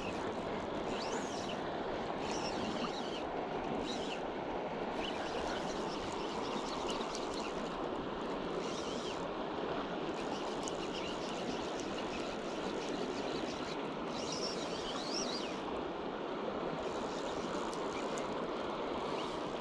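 Steady rushing of the Provo River's current flowing past and over the riffles, with a few faint high chirps, about a second in and again near fifteen seconds.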